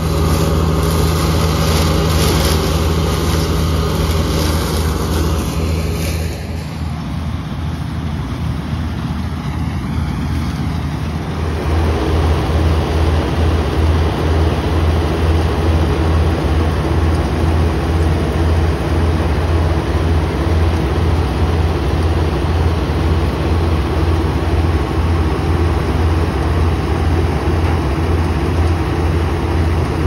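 Diesel engines of a Pargat 930 combine harvester and a John Deere tractor running together, a loud, steady low drone. The sound shifts about six seconds in, and in the second half it carries an even low throb.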